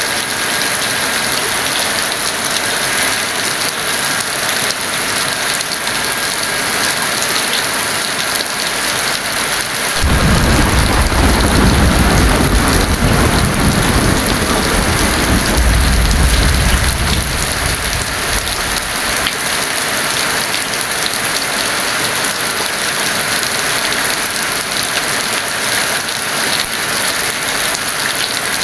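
Heavy rain falling steadily. About a third of the way in, a roll of thunder rumbles for several seconds, swelling and then dying away.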